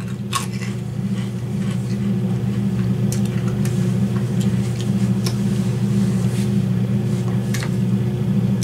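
A person chewing crispy potato chips, with faint irregular crunches every second or so, over a steady low hum that is the loudest sound throughout.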